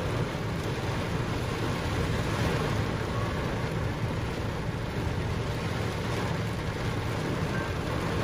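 Heavy rain pelting the roof and windshield of a stopped pickup truck, heard from inside the cab as a steady hiss over a low rumble.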